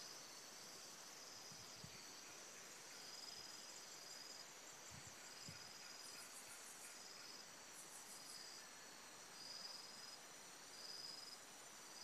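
Faint rainforest insect chorus: a high-pitched call repeating about once a second over a steady high buzz, with a fast pulsing trill twice around the middle.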